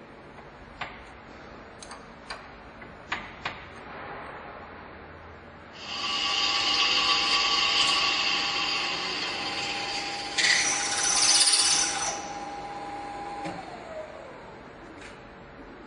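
Universal milling machine (MF 5V) starting up about six seconds in after a few clicks, its spindle running loud and steady with a whine, loudest for a couple of seconds in the middle, then winding down near the end.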